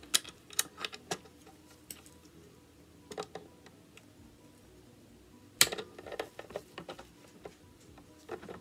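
Irregular small metal clicks and taps of locking pliers working at the receiver cover pin of an SKS rifle, with one louder sharp click about five and a half seconds in.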